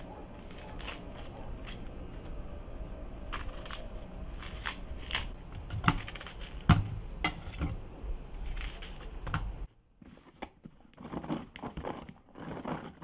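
Knife cutting a red onion, with crisp crunches and sharp taps as pieces drop into a plastic bowl. After an abrupt cut about ten seconds in, a hand-cranked food chopper turns in short rattling bursts as its blades chop the onion.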